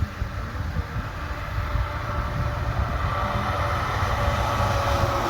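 A vehicle running, with a steady low rumble and a whine that grows louder toward the end.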